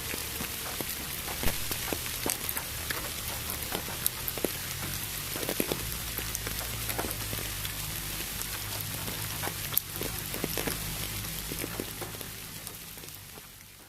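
Rain falling, a steady hiss dotted with many sharp drop ticks and pops, blended with a smooth pink-noise wash. It fades down over the last couple of seconds.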